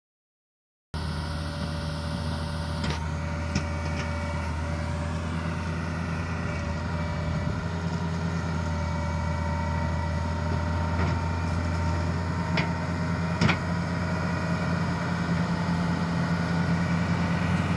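Daewoo 130W-V wheeled excavator's diesel engine running steadily as the machine works across the dirt, starting about a second in, with a few sharp metallic clanks along the way.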